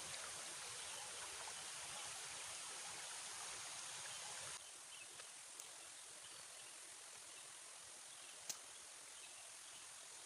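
Faint steady outdoor background hiss that drops a little about halfway through, with a few light clicks and one sharper tick near the end.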